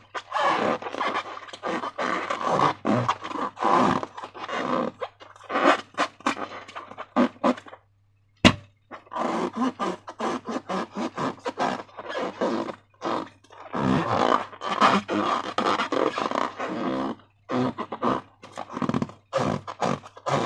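Slime being squished and worked by hand, an irregular run of wet, sticky squelches and crackles. There is a brief pause about eight seconds in, followed by a single sharp click.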